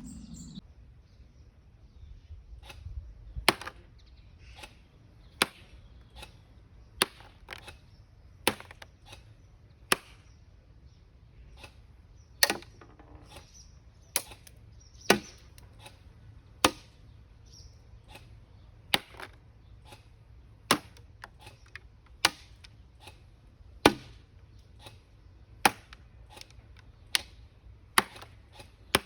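Upgraded Cyma SR25 airsoft electric DMR firing single shots: a steady string of sharp cracks, one every one to two seconds.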